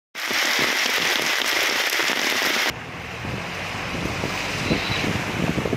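Heavy rain pouring down, a dense steady hiss. About two and a half seconds in it cuts off abruptly, giving way to a lower rushing of wind on the microphone and floodwater churning along the side of a vehicle wading through it.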